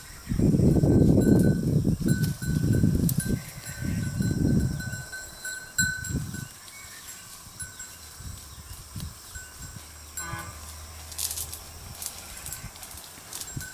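Roadside goat herd grazing: a small livestock bell rings faintly and repeatedly, under low rumbling noise that is loud in the first five seconds, with one short animal call about ten seconds in.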